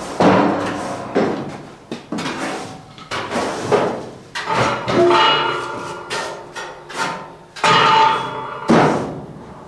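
Hammer striking steel, about a dozen irregular blows, each ringing briefly as it dies away.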